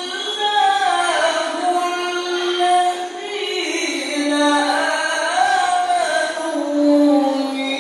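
A male qori reciting the Quran in the melodic tilawah style into a microphone, holding long notes that wind up and down in ornamented turns.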